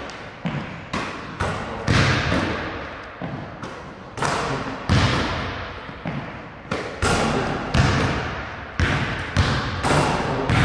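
Basketballs bouncing on a hardwood gym floor: a run of sharp thuds, about one or two a second, each ringing on in the echo of the large hall.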